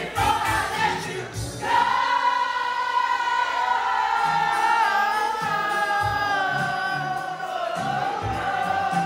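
Loud party music with many voices singing, holding long notes over a repeating bass beat.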